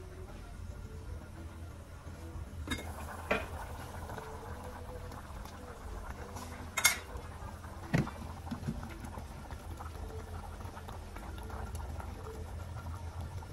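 Aluminium pot of fish broth bubbling on a gas burner, with a few sharp metal clinks of the pot and lid, the loudest about seven seconds in.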